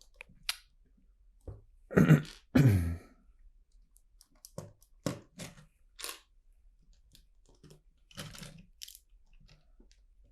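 A person drinking water: two loud swallowing gulps about two seconds in, followed by several short clicks and a brief rustling noise near the end.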